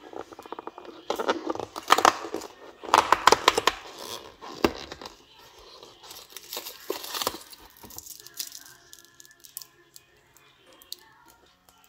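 Cardboard door of a Lindt chocolate advent calendar being torn open along its perforation, a rapid run of tearing and crackling in the first few seconds with another burst a little later. It is followed by the crinkle of the foil-wrapped Lindor truffle being handled, then it goes quieter from about eight seconds in.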